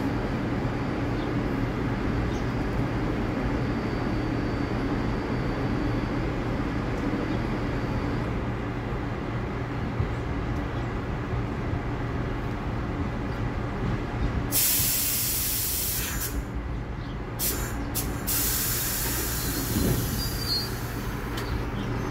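R62A subway train standing at the platform with its equipment humming steadily. About fourteen seconds in, loud air hissing starts from the train's air brakes: a burst of a second or two, two short hisses, then a longer hiss near the end as the brakes release for departure.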